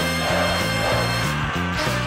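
Live soul band playing an uptempo number, with a bass line moving in short repeated notes under guitars and drums.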